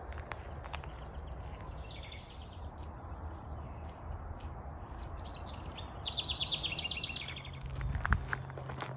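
Songbirds singing outdoors: a short run of quick, high repeated notes about two seconds in, and a longer, louder trill about six seconds in. A sharp thump near the end.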